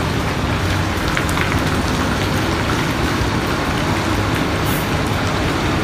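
A coach bus engine running as the bus drives slowly past, over the steady hiss of rain falling on wet pavement.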